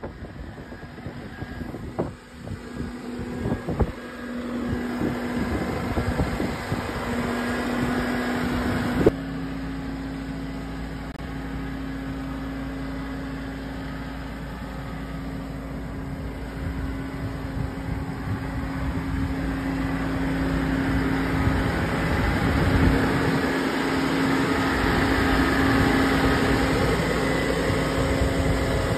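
Genie GTH-5519 telehandler's engine running steadily while it handles a steel pipe, with a couple of sharp knocks in the first few seconds.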